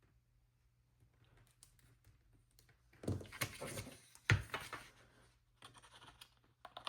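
Rustling and small taps of paper and tape being handled and pressed onto a planner page, loudest about three to four seconds in with one sharp tap.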